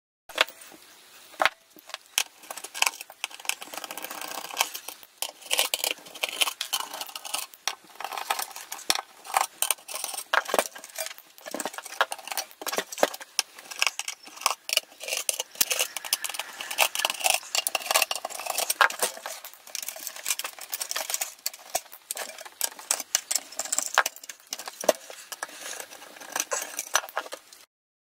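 Screwdriver working small steel screws out of an aluminium avionics case, with a steady run of irregular metal clicks and scrapes, and loose screws clinking as they drop into a metal tray.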